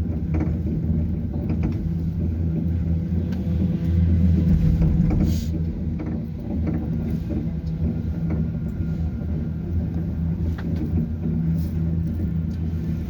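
Steady low drone of a moving vehicle heard from inside, swelling briefly a few seconds in, with a few light knocks and rattles.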